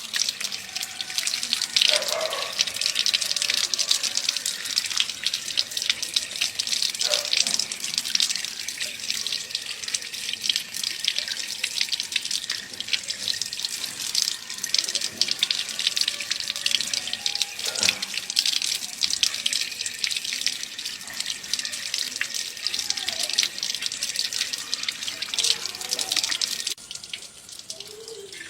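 Water running or spraying steadily, hissing and splashing on hard surfaces; it stops about a second and a half before the end.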